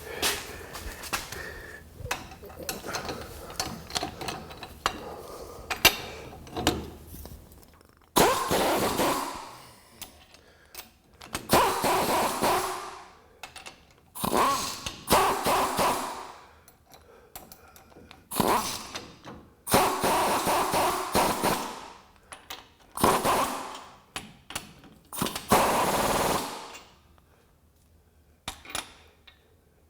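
An impact wrench hammering on U-bolt nuts in seven short bursts of one to two seconds each, snugging them down. Before the bursts, about eight seconds of light metal clicks and rattles.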